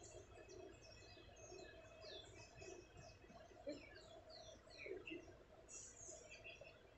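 Faint chorus of wild birds: many quick chirps and short falling whistles overlapping, over a low, steady outdoor rumble.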